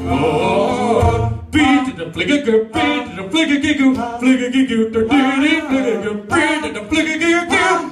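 Live male singing with acoustic guitar accompaniment. About one and a half seconds in, the low guitar sound drops back and the voices carry the music almost alone.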